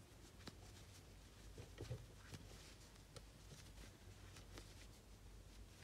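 Near silence with faint, scattered light clicks and rustles of a crochet hook working single crochet stitches into yarn.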